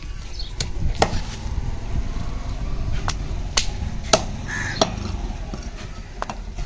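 A heavy curved cutting blade chops through a large seer fish (surmai) head onto a wooden chopping block. About seven sharp, unevenly spaced chops are heard, the loudest about one second, four seconds and nearly five seconds in.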